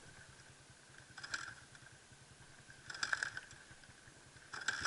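A flooded dirt bike engine being cranked over three times, each attempt about a second and a half apart, without catching. The bike flooded when it fell over.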